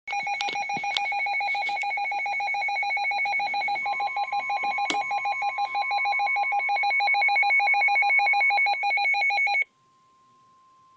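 Weather radio receiver's alert alarm: a loud, rapidly pulsing electronic warble that cuts off suddenly about nine and a half seconds in. Under it, from about four seconds in, NOAA Weather Radio's steady 1050 Hz warning alarm tone runs on faintly.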